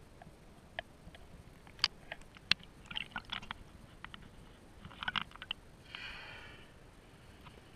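Water lapping and splashing against a camera dipped at the sea surface: scattered sharp clicks and small wet pops, clustered about three and five seconds in, with a short hiss of water about six seconds in.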